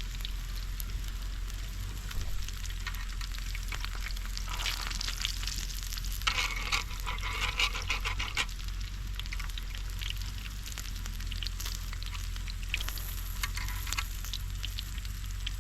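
Pork belly frying in a hot pan: a steady sizzle with fine crackling spatters, louder for a spell about five seconds in and again about seven seconds in.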